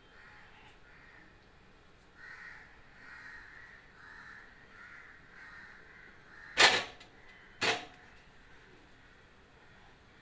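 A crow cawing twice, two loud, harsh caws about a second apart, over fainter calls repeating about once a second.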